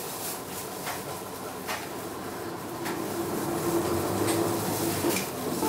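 Cabin running sound of a 2015 Hino Blue Ribbon II diesel city bus gathering speed: steady engine and road noise growing louder, with a steady whine joining about halfway through and a few light rattles and clicks.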